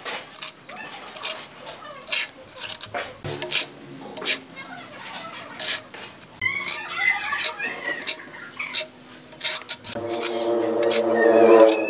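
Small steel pointed trowel scraping and tapping on wet cement render: an uneven run of quick scrapes and clicks. About ten seconds in, a long pitched animal call rises over the scraping and becomes the loudest sound.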